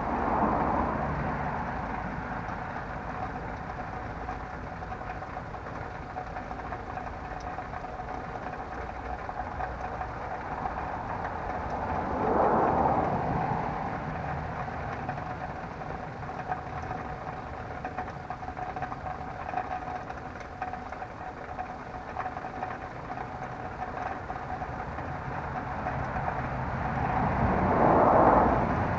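Road vehicles passing over a steady low traffic rumble, with three louder swells as they go by: at the start, about twelve seconds in, and near the end. A constant thin tone runs underneath.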